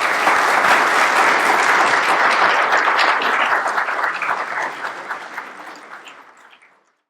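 Audience applauding, a dense steady patter of many hands clapping that fades away near the end.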